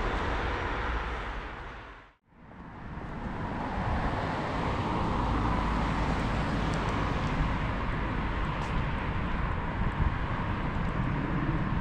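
Steady road-traffic noise from cars passing on a street. It fades out to silence about two seconds in, then fades back up.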